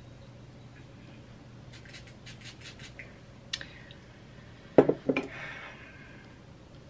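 Small objects handled on a hard surface: a run of faint clicks, a sharper click, then two louder knocks close together, with a steady low room hum underneath.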